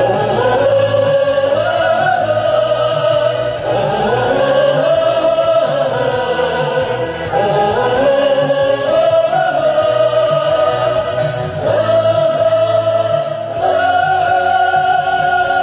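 A Vietnamese song played for a dance: a singing voice over backing music, in long phrases that slide up and then hold a note, a new phrase starting every few seconds.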